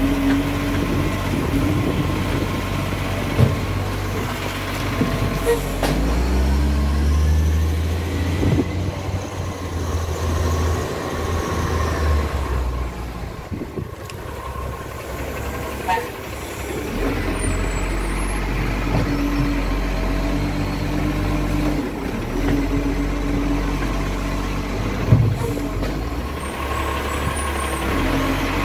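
Iveco side-loading garbage truck's diesel engine working through a bin pick-up: running as the arm handles a bin, speeding up and pulling away up the street, then settling to a steady run as the arm reaches for the next bin. Two sharp knocks, about three seconds in and near the end.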